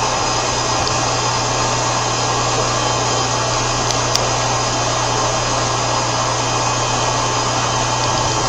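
Lagunmatic 3516 vertical machining center running its program: a steady rushing hiss over an even low hum, with a couple of faint ticks about four seconds in.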